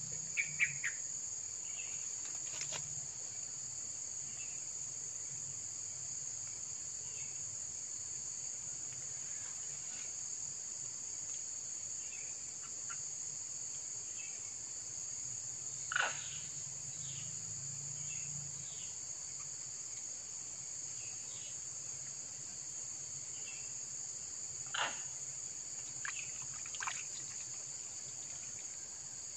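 Steady, high-pitched chorus of insects, with a few faint short clicks or splashes, the clearest about halfway through and another some seconds later.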